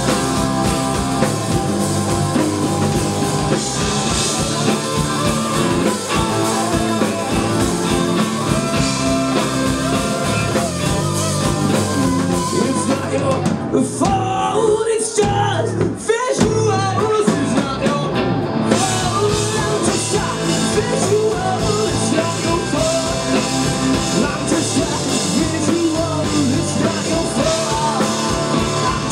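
A rock band playing live: electric guitars, bass guitar and drum kit with a singer. Past the middle the cymbals and drums stop for about five seconds, leaving a wavering pitched line, then the full band comes back in.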